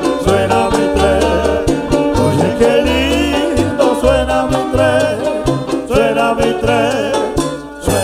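A live Cuban-style son band plays at full volume: a pulsing upright bass line under a plucked tres, trumpet and voices. The music drops briefly just before the end.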